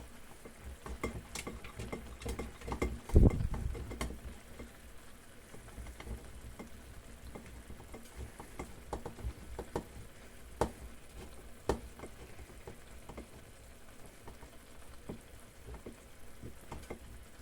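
Omelette sizzling in a frying pan on an electric cooker, with scattered scrapes and knocks as cheese is grated by hand; one louder knock comes about three seconds in.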